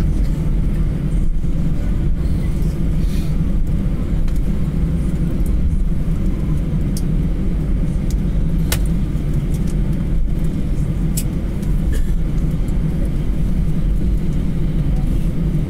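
Airbus A320 cabin noise while taxiing: a steady low rumble of the idling jet engines and the wheels rolling on the taxiway. A few brief sharp ticks sound along the way.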